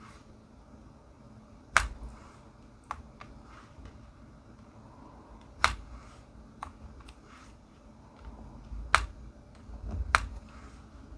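Sparse, irregular sharp clicks and taps, about half a dozen, from diamond painting: a drill pen picking up round resin drills and pressing them onto the sticky canvas. Soft handling thumps come in near the end.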